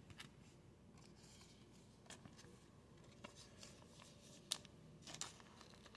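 Faint rustle and a few soft ticks of a trading card and a clear plastic card sleeve being handled.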